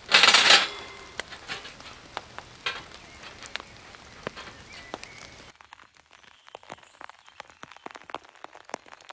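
A loud, short metallic clatter as a grill grate is set onto a small wood-burning camp stove, followed by scattered small ticks. About five and a half seconds in, raindrops drip onto a wet tarp as sharp, scattered ticks over a quieter background.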